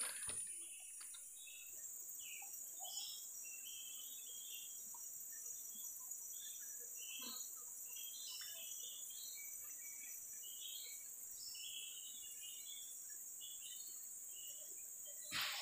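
Tropical forest ambience: a steady high insect drone with many short bird chirps scattered throughout. A brief louder noise comes right at the end.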